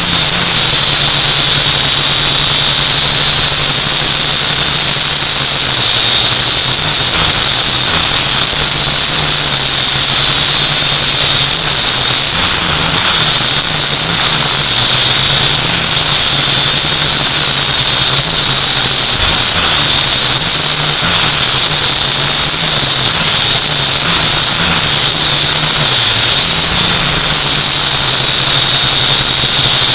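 Small drone's motors and propellers whining steadily in flight: a high whine that wavers slightly in pitch over a low hum.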